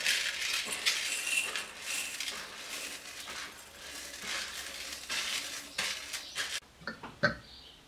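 Washed rice poured and swept by hand from a plastic bowl into a glass bowl: a continuous rustling patter of grains landing on glass, which stops about six and a half seconds in. A few short, light knocks follow near the end.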